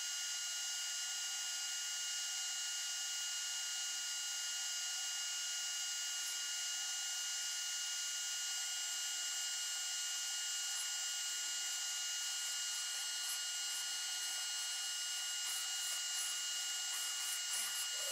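Two RC servos, a Hextronic HX12K and a JX PDI-6221MG, powered at 5.82 volts, giving off a steady high-pitched electrical whine from their motors. Near the end a fast ticking gear chatter sets in as the servos start to move.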